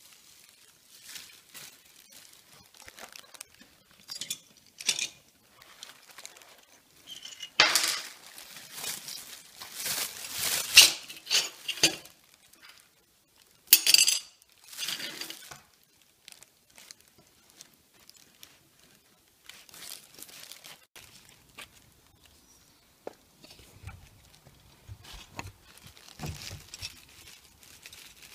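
Pieces of a broken white ceramic plate clinking and clattering against each other as they are handled, with a thin plastic carrier bag crinkling. The sounds come in short scattered bursts, the loudest clatters about eight, eleven and fourteen seconds in.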